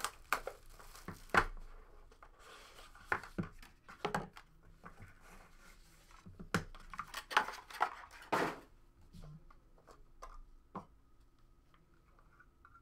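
Shrink wrap being torn and crinkled off a box of trading cards, with scattered clicks and knocks of hard plastic card cases being handled. It grows sparser near the end.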